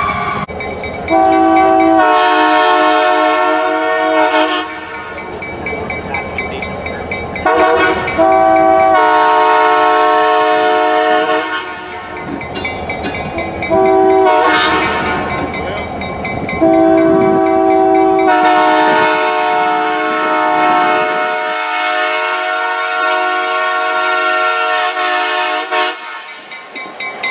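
Multi-chime locomotive air horn sounding four chord blasts: two long, one short, then one held long. This is the long-long-short-long pattern of a grade-crossing signal, with the train's running noise between blasts.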